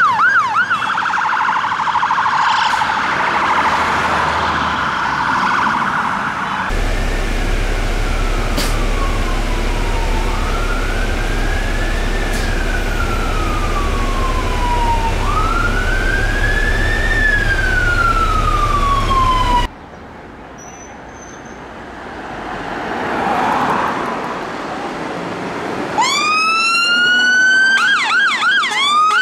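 Fire engine sirens across several clips: a fast yelp first, then a slow rising-and-falling wail over a low rumble. After a quieter stretch, a siren winds up near the end and goes into a fast yelp.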